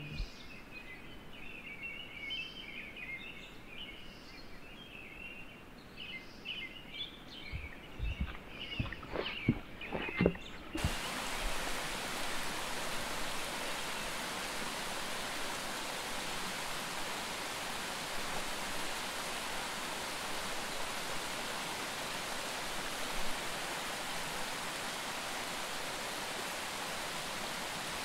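Woodland birds chirping, with a few sharp knocks, then about ten seconds in an abrupt change to a small mountain brook rushing and splashing over rocks in a little cascade, a steady even rush that is the loudest sound.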